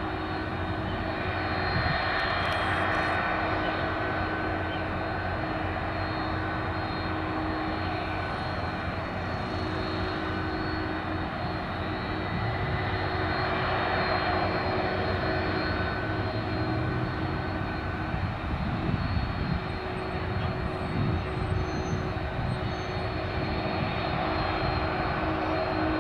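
Airbus A300-600ST Beluga's two General Electric CF6 turbofan engines running at taxi power as the aircraft rolls slowly along the runway. It is a steady jet whine of several held tones over a low rumble.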